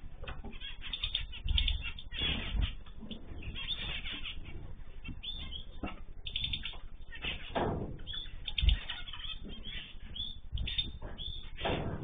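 Small finches in an aviary chirping steadily and fluttering their wings, with a few louder thumps from birds landing, the loudest about two-thirds of the way in. The sound is thin and dull, heard through a surveillance camera's microphone that cuts off the higher notes.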